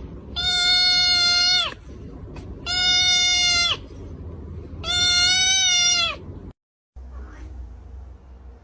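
An animal giving three long, steady, high cries, each lasting a little over a second and ending with a quick drop in pitch.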